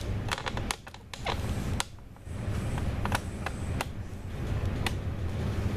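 Passenger train running, heard from inside the carriage: a steady low rumble with scattered sharp clicks and creaks. The rumble dips briefly twice in the first two seconds.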